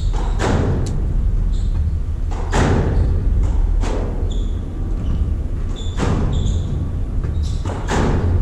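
Squash rally: the ball is struck by rackets and smacks off the front and glass walls in sharp cracks, often in pairs about half a second apart, with short high squeaks of court shoes between them and a steady low rumble underneath.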